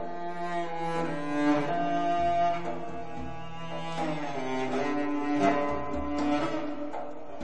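Cello music with deep low string notes beneath it, the melody held and sliding between pitches, played from a vinyl LP on a turntable through hi-fi loudspeakers.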